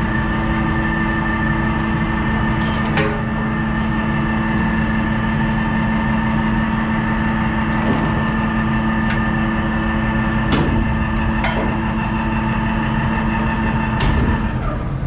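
Electric lifeboat davit winch running steadily as it hoists the lifeboat, with a few metallic clicks along the way. The hum cuts off shortly before the end, when the limit switch stops the hoist with the boat at its limit.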